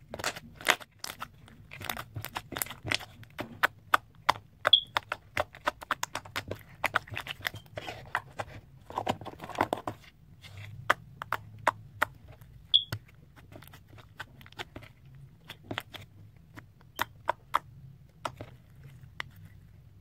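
Slime being poked, pressed and squeezed by hand, giving many rapid, irregular sharp clicks and pops, with a longer, denser stretch of squishing about halfway through.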